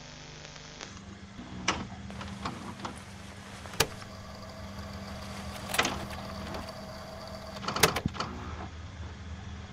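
A steady low hum with several sharp clicks and knocks scattered through it, a small cluster of them near the end.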